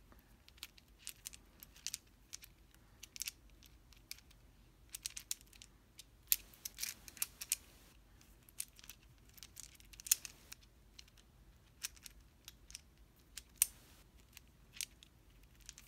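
Aluminum-alloy infinity cube fidget toy being flipped over and over in the hand, its hinged blocks meeting in irregular light clicks and clacks.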